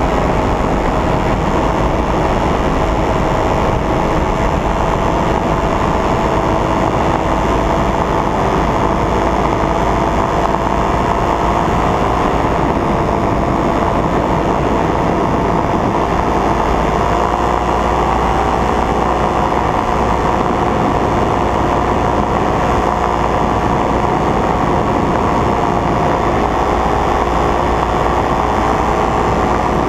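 Paramotor engine and propeller running steadily in flight, a constant drone that climbs a little in pitch about two-thirds of the way through.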